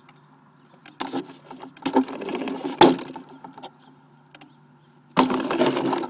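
Model airplane's motor and propeller run up in two loud bursts while taxiing, the prop blast buffeting the phone microphone in the cockpit into crackling noise, with two sharp knocks about two and three seconds in.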